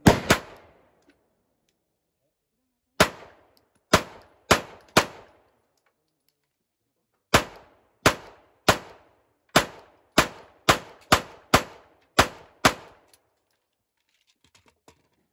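Semi-automatic pistol with a drum magazine fired shot by shot, each shot ringing off briefly. Two shots come at the start, four more about three seconds in, then a string of ten over the next five seconds. Faint small clicks follow near the end.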